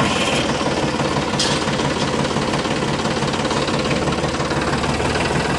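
Tractor engine running steadily with a fast, even knocking beat.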